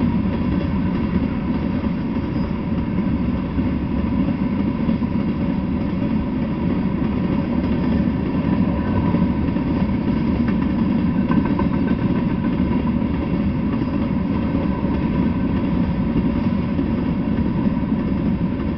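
Freight train of covered hopper cars rolling past, a steady rumble of steel wheels on rails.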